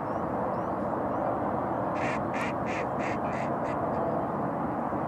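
A duck quacking six times in a quick, even series, about three quacks a second, starting about two seconds in, over steady background noise.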